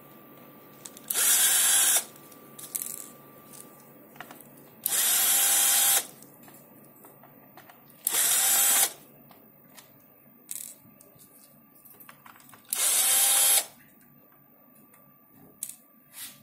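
Small electric screwdriver running in four short bursts of about a second each, its motor pitch rising as each one starts, backing out the screws that hold the clock's case together. Light clicks and handling noises come between the bursts.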